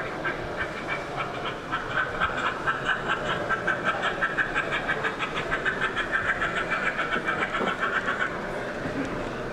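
Sound-fitted OO gauge model steam locomotive chuffing steadily from its onboard speaker, about four beats a second. The beats build up about a second and a half in and stop near the end.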